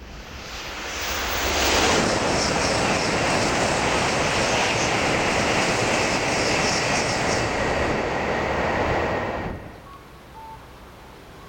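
N700-series Shinkansen bullet train passing through a station at high speed without stopping. A rush of air and wheel noise builds over about two seconds, holds loud and steady for some seven seconds, then cuts off suddenly as the last car clears.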